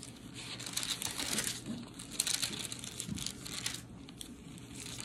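Pages of a Bible being turned and rustled by hand while searching for a passage: a run of short, irregular papery rustles.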